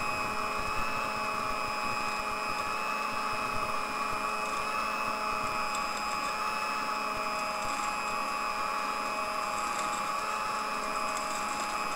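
Sunbeam Mixmaster stand mixer running steadily, its electric motor humming as the twin beaters whip egg whites into meringue in a steel bowl.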